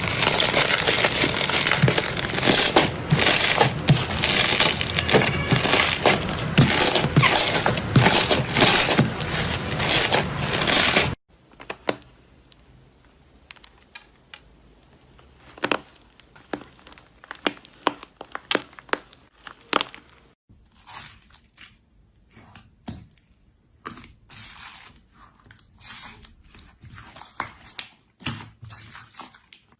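Slime being pressed and squeezed by hand: dense, loud crackling and crunching, then after an abrupt cut about eleven seconds in, quieter, scattered clicks and pops.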